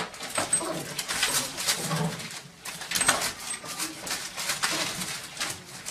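A small dog whining and yipping while its claws scratch and rattle against a wooden door in quick strokes.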